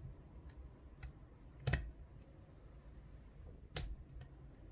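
Small metallic clicks of a hook pick working the pin stacks of a GeGe rim cylinder with serrated security pins, held under tension. There are a few faint ticks, then two sharper clicks, one about a second and a half in and one near the end.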